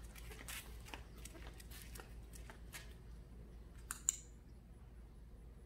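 Footsteps on a concrete driveway, a person walking with a dog at heel, as a run of short even steps that stop about three seconds in. About four seconds in come two sharp clicks close together, the loudest sounds here.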